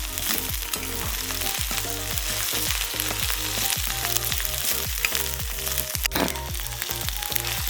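A freshly ground wet paste of marauti, ajwain, ginger and garlic frying in hot oil with fenugreek seeds, sizzling steadily. One sharp knock comes about six seconds in.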